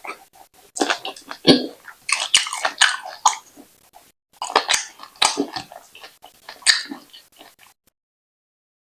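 Close-miked chewing of brown wheat fufu with ogbono soup: wet, sticky mouth sounds and smacks in irregular bursts. They stop about a second before the end.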